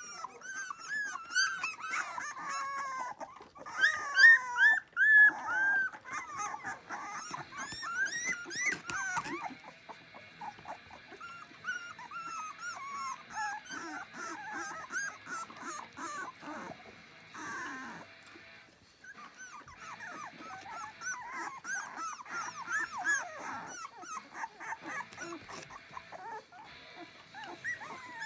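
A litter of two-and-a-half-week-old puppies squealing and squeaking, many short high calls rising and falling and overlapping, loudest a few seconds in.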